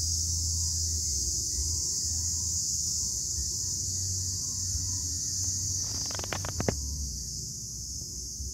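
Steady high-pitched chorus of crickets, over a low uneven rumble. A quick run of sharp clicks comes about six seconds in.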